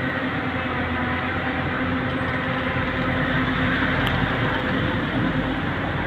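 Heavy diesel engine of construction machinery running steadily with a constant low drone.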